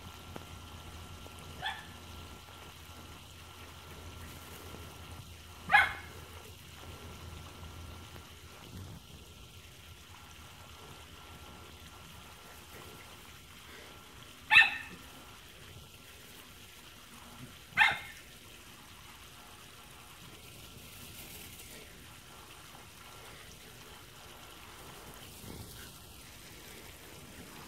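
A small dog barking: four single sharp barks spaced several seconds apart, the first one fainter.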